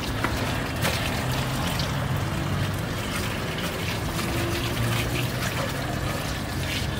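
Tap water running into a stainless-steel sink and splashing over hands being rinsed under it, with a low steady hum underneath.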